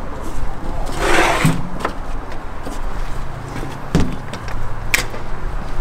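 Gear being handled in a fire engine's fender-level side compartment: a scraping slide about a second in that ends in a knock, a dull thump about four seconds in and a sharp metallic click near five seconds, over a steady low hum.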